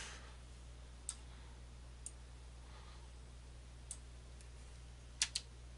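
Computer mouse clicking: a few sparse, sharp single clicks, then a quick double click about five seconds in, the loudest of them, over a low steady electrical hum.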